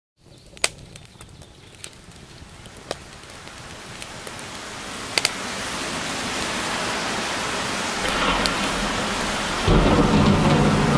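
The opening of a dark ambient witch-house track: a rain-and-thunderstorm wash that swells steadily louder, with scattered sharp crackles in the first few seconds. A deep bass with low pitched tones comes in near the end and jumps louder.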